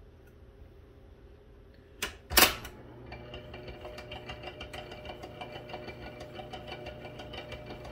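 A loud clunk about two seconds in as the controls of a 1940s Webster-Chicago wire recorder are thrown, then its drive mechanism runs with a steady low hum and a fast, even light ticking.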